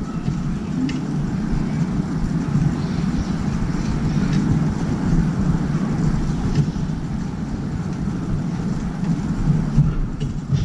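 Steady low outdoor rumble of city background noise, with a few faint light ticks.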